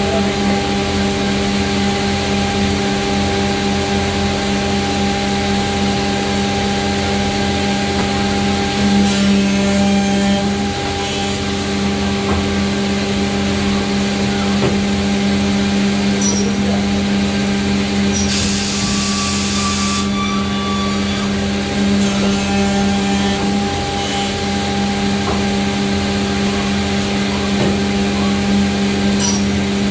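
Dessa Makina edge banding machine running with a steady hum while cabinet panels are fed through it. A hiss of released air about 18 seconds in, a fainter one around 9 seconds, and a few light clicks.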